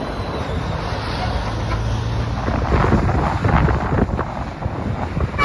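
Highway traffic passing, with wind buffeting the microphone. A low steady engine drone fills roughly the first two seconds, and rushing swells of passing vehicles come through the middle.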